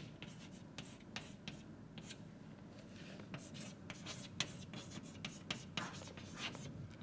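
Chalk writing on a blackboard: a faint run of quick, irregular taps and short scratches as letters are written.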